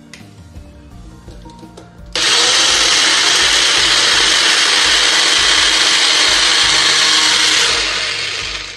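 Mixer grinder motor starting abruptly about two seconds in and running steadily, grinding soaked roasted chana dal (daliya) with spices into a chutney paste, then winding down near the end.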